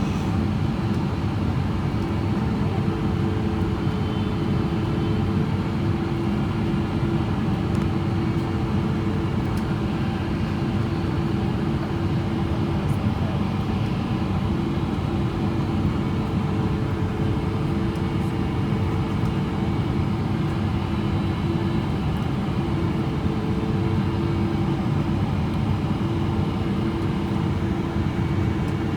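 Steady cabin noise of a Boeing 777-300ER on final approach: its GE90-115B engines and the airflow make an even low rumble, with a few steady hum tones that fade in and out.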